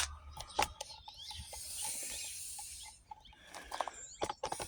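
Outdoor background: a steady high hiss with faint bird chirps, broken by a few sharp clicks and knocks, most of them in a cluster near the end.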